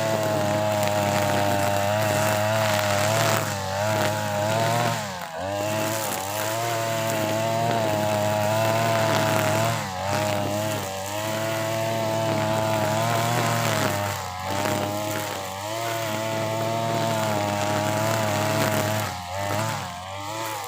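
TB43 two-stroke brush cutter running at full throttle with a trimmer head cutting thick grass. The engine note wavers and dips briefly several times as the line bogs in the dense grass.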